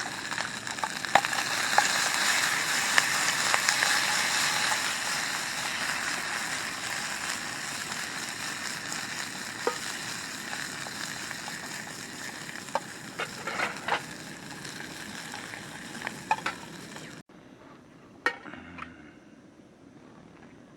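Food frying in a hot pan: a steady sizzle with scattered pops, loudest a few seconds in and slowly dying down, then cut off abruptly near the end, leaving a quieter stretch with a few clicks.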